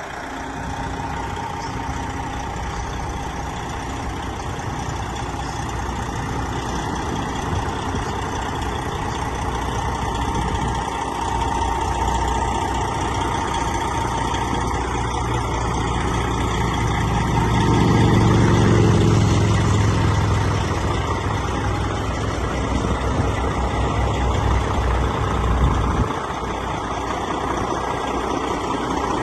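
Diesel engine of a 2015 Phoenix front-discharge concrete mixer truck running steadily at idle, growing louder for a few seconds about two-thirds of the way through.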